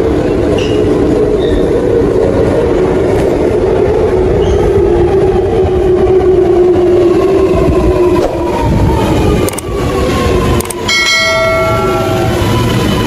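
Sydney Metro driverless train (Alstom Metropolis) running into an underground station behind platform screen doors. Steady rumble of wheels on rail, with a humming tone and a whine from the electric traction that fall in pitch as it slows to a stop. A short pitched tone sounds near the end.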